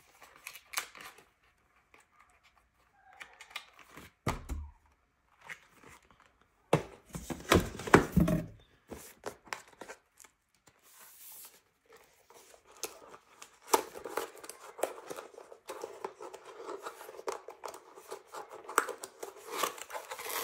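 Packaging being handled and torn during unboxing: scattered rustles and crackles, a louder burst of handling noise about eight seconds in, and steady crinkling from about fourteen seconds on.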